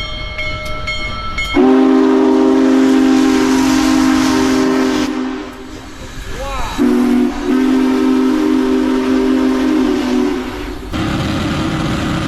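A multi-tone horn sounding two long chords of about three to four seconds each, the first over a hissing background.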